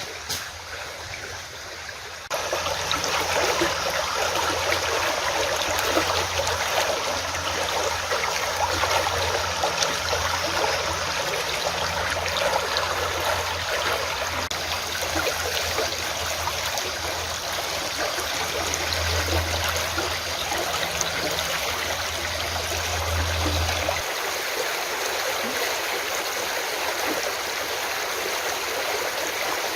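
Running water of a stream, a steady rushing and trickling that grows louder about two seconds in. Under it a low steady hum runs until about three-quarters of the way through, then stops.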